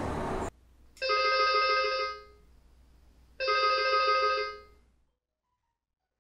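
Intercom call ringing: two electronic ring tones, each about a second and a quarter long, about two and a half seconds apart, a call to a resident's flat waiting to be answered.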